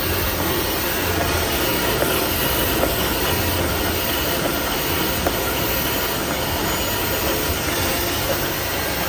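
Toilet-paper roll band-saw cutting machine running: a steady mechanical din from the saw and conveyor, with a few light clicks.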